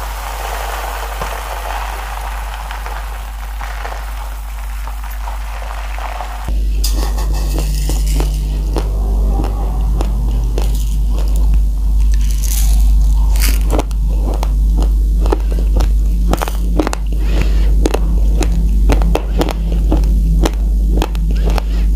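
Raw white rice grains pouring into a glass bowl, a steady hiss. About six seconds in this changes abruptly to dry crunching of raw, uncooked rice being chewed: many irregular crunches over a low hum.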